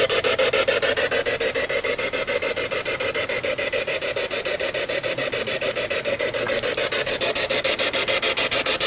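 Spirit box sweeping through radio stations: harsh static chopped into a fast, even stutter many times a second, with no clear word coming through.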